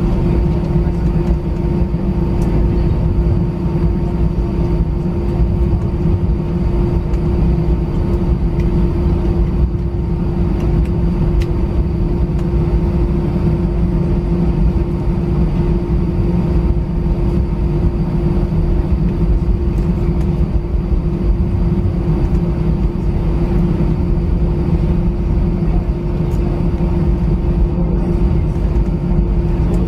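Airliner cabin noise while taxiing: a steady engine drone over a heavy low rumble, with a constant hum.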